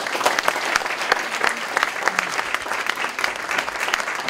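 Audience applauding, many hands clapping at once in a steady, dense stream of claps.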